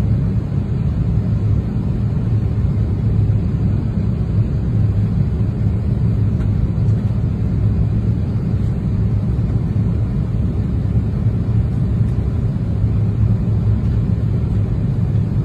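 Airliner cabin noise in flight: the steady low rumble of the jet engines and the airflow over the fuselage, heard from a window seat, unchanging throughout.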